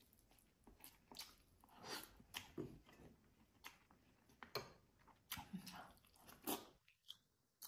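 Close-miked eating sounds: faint chewing with short, separate wet mouth smacks and clicks as a person eats boiled fish, greens and rice. The sound cuts out completely for a moment near the end.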